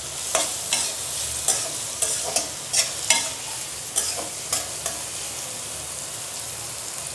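Sliced onions frying in hot oil in a metal karahi with a steady sizzle. A metal spatula scrapes and knocks against the pan as they are stirred, about once or twice a second, and the knocks stop about five seconds in, leaving only the sizzle.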